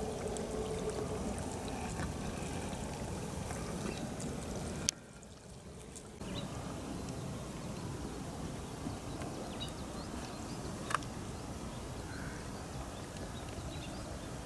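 Outdoor spring riverside ambience: a steady rushing hiss with faint, scattered bird calls. The sound drops away briefly about five seconds in, and a single click comes near eleven seconds.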